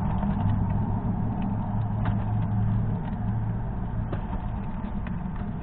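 A steady low mechanical hum, like an idling engine or motor. Over it come a few faint sharp clicks, about two, four and five seconds in: a fox squirrel cracking sunflower seed shells.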